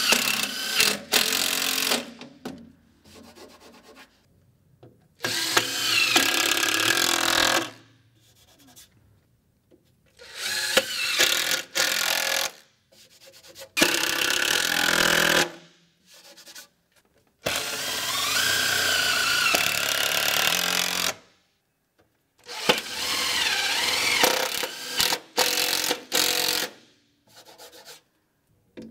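A power drill driving self-drilling fibre cement screws straight through fibre cement sheet into steel and timber studs, the screw drilling and countersinking itself without a pilot hole. There are about six separate drives of two to four seconds each, with short silences between them.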